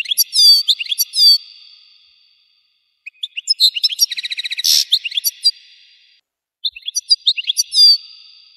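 European goldfinch singing in three bursts of high twittering song with short silent gaps between them. The middle burst holds a fast, buzzy trill.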